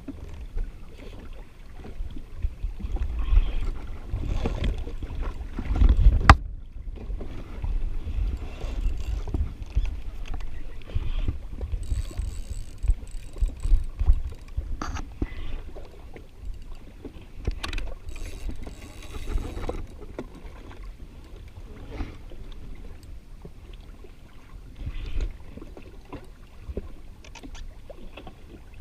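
Wind buffeting the microphone with water slapping and splashing against a jet ski's hull, in uneven gusts, with a sharp crack about six seconds in.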